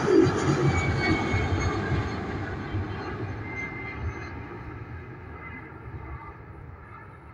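Jet engines of a departing Airbus A320 at climb power, fading steadily as the airliner climbs away, the higher-pitched part of the sound dying out first and leaving a low rumble.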